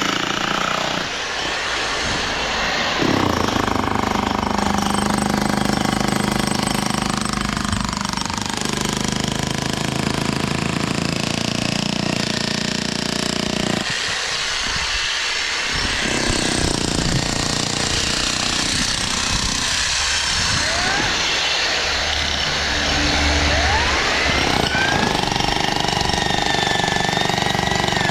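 Continuous rapid hammering of construction equipment, typical of a jackhammer, briefly easing in the middle, with a wavering high whine near the end.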